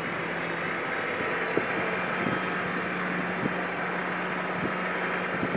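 Nissan Patrol GR Y61 driving on a rutted dirt track: a steady engine hum and running noise, with a few light knocks.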